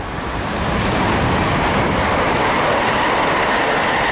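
Chiltern Railways Class 168 diesel multiple unit passing through the station without stopping: a loud, steady rush of wheel and train noise that swells over the first second and then holds, with a faint steady whine in it.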